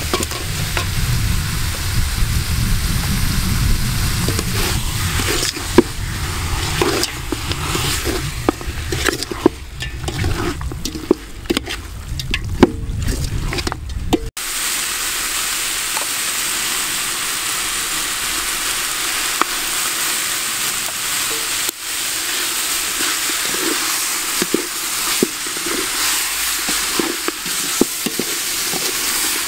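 Chicken pieces in spice paste frying in a large aluminium pot, a metal spoon scraping and clinking against the pot as the meat is stirred. For the first half there is a low rumble under the clatter; about halfway through the sound cuts to a steady sizzle with occasional taps of the spoon.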